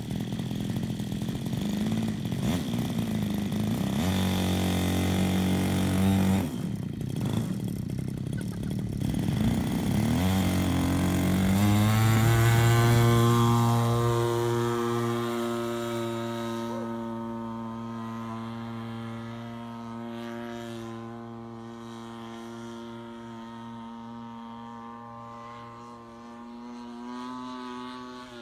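The engine of a quarter-scale radio-controlled Sopwith Pup model biplane running under throttle. Its pitch changes a few times in the first ten seconds. It is loudest about twelve seconds in as the plane passes low, then holds a steady note that fades as the plane climbs away.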